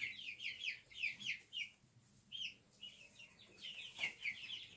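Young chickens peeping: runs of short, high chirps, each sliding down in pitch, several a second, with a brief lull about two seconds in. A single small click sounds about four seconds in.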